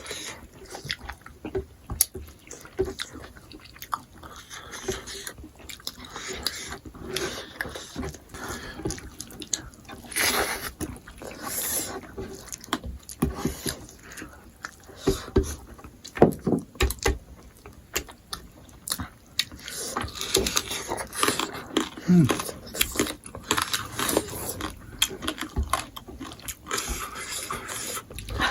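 People chewing and biting smoked pork close to the microphone: irregular wet mouth smacks and crunchy bites.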